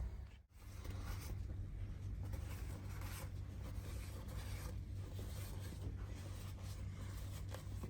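Light scratchy rubbing of a hand or rag wiping black brake dust from an alloy wheel rim, over a steady low hum.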